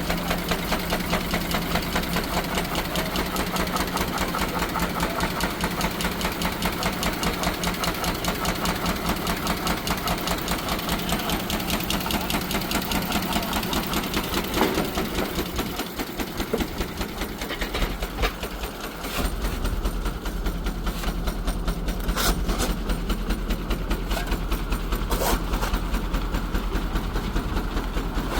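Aultman Taylor steam traction engine running with a fast, steady mechanical beat. The beat dips briefly a little past halfway, then carries on with a heavier low thud.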